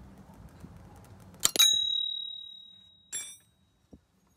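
A steel spanner strikes metal with a sharp clang and rings with a clear bell-like tone that dies away over about a second and a half. A second, lighter metallic clink follows about three seconds in.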